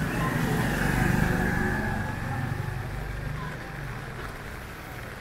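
A motor vehicle passing close by on a city street: its engine sound swells to a peak about a second in, then fades away into steady street noise.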